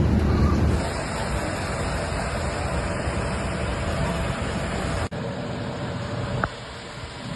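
Rainstorm with strong wind: a steady noise of heavy rain and wind on the microphone, changing abruptly twice as the clips cut.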